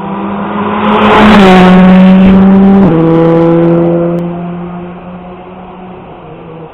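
A rally car's engine holding a steady note that swells loud and then fades, as a car passing by does. Its pitch steps down sharply twice, about one and a half seconds and three seconds in.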